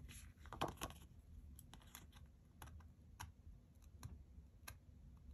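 Faint, scattered clicks and crinkles of a clear plastic sticker sheet being handled and flexed while tweezers pick at a sticker. The loudest few clicks come about half a second to a second in.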